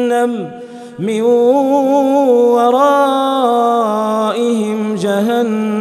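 Male Quran reciter chanting in melodic tajweed, holding long drawn-out notes that step and turn slowly in pitch, with a short breath pause about a second in.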